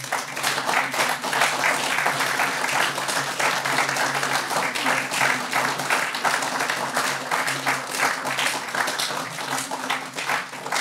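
Audience applauding: a long, even round of many people clapping.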